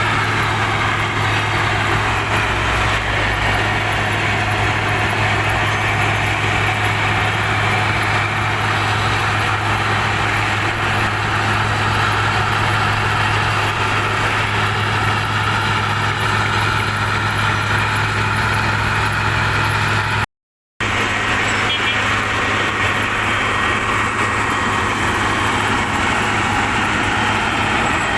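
Heavy road-works machine's engine running steadily at work, a strong low hum under a broad, even noise; the sound cuts out for a moment about twenty seconds in.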